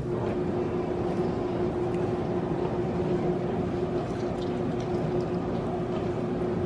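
A steady machine hum: a constant low tone over an even rushing noise, unchanging throughout.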